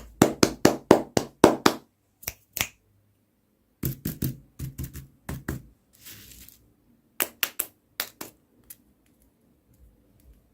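Runs of sharp taps and clicks of hard objects being handled and knocked together, quick in bursts with short pauses, and a brief rustle about six seconds in.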